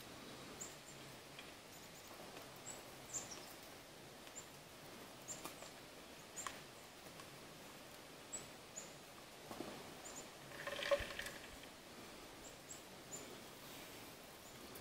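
Quiet woodland ambience with scattered short, high, falling chirps of small birds and soft clicks and crunches as an American black bear eats peanuts from a plastic bowl held by hand. A louder cluster of crunching and knocking comes about eleven seconds in.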